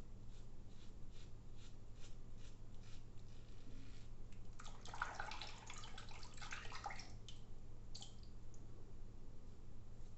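Short scraping strokes of a Gillette Blue3 cartridge razor through lathered stubble, a few a second. About four and a half seconds in comes a splash of running water lasting a couple of seconds as the razor is rinsed, and a single stroke follows near the end.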